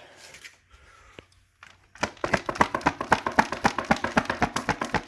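Rapid, even tapping, about nine taps a second, starting about two seconds in and lasting about three seconds.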